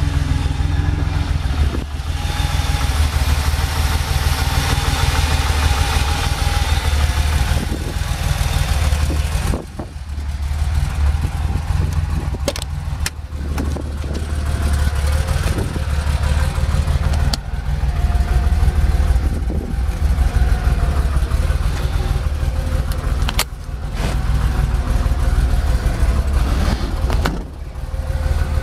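Porsche 911 SC's air-cooled flat-six engine idling steadily, with a few sharp clicks and knocks over it.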